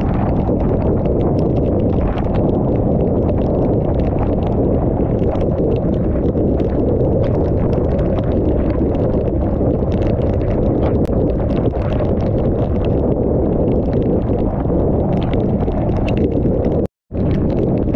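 Wind and heavy rain rushing over a waterproof GoPro housing on a motorcycle at highway speed: a dense, steady, low roar with many sharp ticks of raindrops striking the housing. The sound cuts out for a moment near the end.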